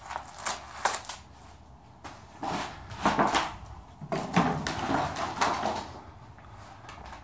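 Knocks, clatter and rustling as a steel flush-panel garage door section is picked up and handled: a couple of sharp clicks near the start, then a busier run of knocks about halfway through that dies down near the end.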